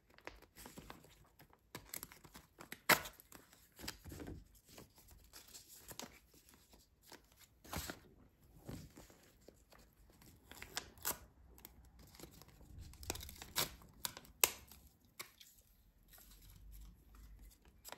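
Paper rustling and tearing as a handmade folded-paper packet is opened and handled, with scattered crinkles and a few sharper crackles.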